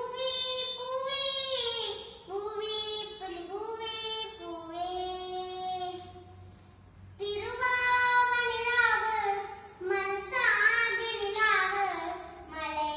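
A young girl singing a Malayalam song solo, without accompaniment, in held, gliding notes. She pauses for about a second midway, then sings on.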